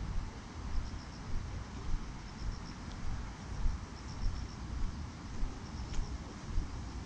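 Crickets chirping in short pulsed groups of three or four, repeating every second or so, over the low rumble and regular footfalls of a walker on a paved path.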